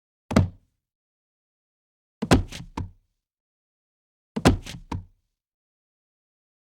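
Recorded human body falls: a single thud, then two falls that each land as a quick run of three or four thuds in under a second, with silence between the falls.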